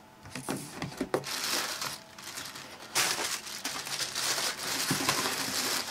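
Plastic air-cushion packaging and a cardboard shipping box crinkling and rustling as they are handled, in irregular bursts with a few light knocks about a second in, loudest in the second half.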